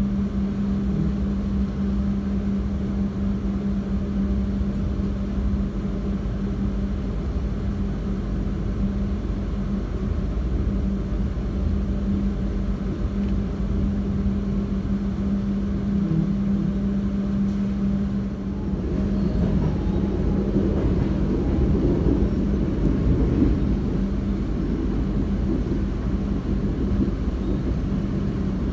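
Argo Dwipangga passenger train running: a steady low hum over deep rumble, which turns rougher and a little louder about two-thirds of the way through.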